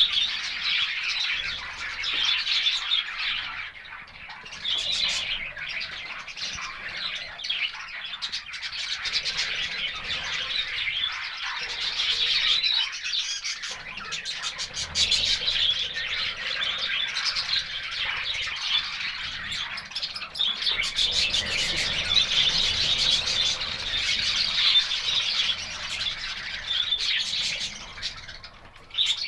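Many parrots chattering, chirping and squawking at once in a continuous, overlapping din.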